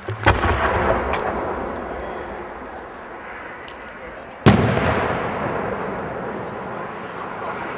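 A 10-inch aerial firework shell fired from its mortar: a soft lift thump just after the start, then one loud boom as the shell bursts about four and a half seconds later. Each bang is followed by a long fading echo.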